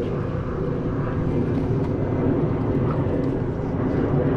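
Jet airliner's engines, a steady deep rumble.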